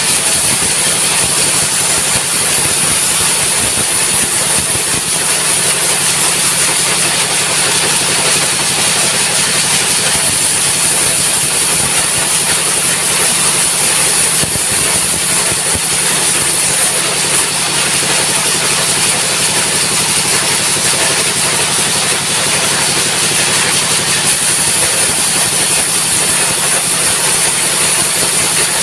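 Sawmill engine running steadily at high throttle, with a constant high hiss over its low drone and no change in speed.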